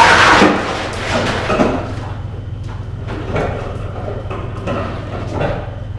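Heavy wooden shipping crate being moved on its delivery, with loud scraping and knocking, strongest in the first second, over a steady low hum.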